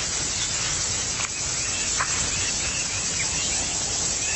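Steady outdoor insect hiss, with a few faint short chirps and two light ticks.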